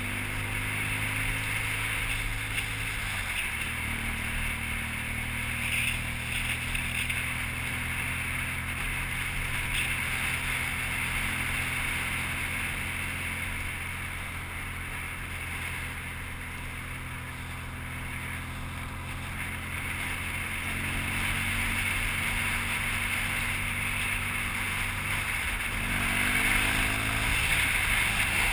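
BMW R1200GS flat-twin engine running as the motorcycle rides along, with wind noise over the microphone. The engine note drops about three seconds in and climbs again near the end as the bike speeds up.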